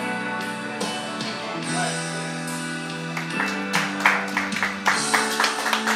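Instrumental ending of a backing track with guitar, its chords held steady. Scattered hand clapping starts about halfway through and grows busier toward the end.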